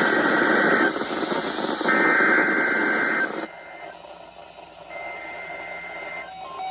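Two bursts of EAS SAME header data, a fast warbling two-tone digital screech, over radio static. This is the coded header that opens a National Weather Service Special Marine Warning on weather radio. The static cuts off about three and a half seconds in, and a beeping alert tone starts near the end.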